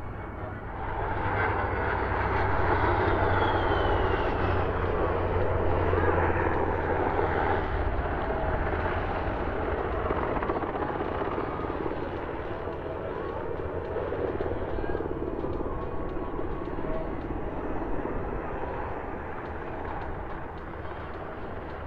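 Military aircraft flying past, swelling to its loudest a couple of seconds in and slowly fading away.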